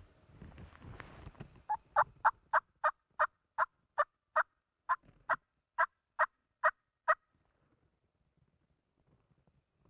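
A run of about fifteen short turkey yelps, roughly three a second, starting about two seconds in and lasting some five seconds.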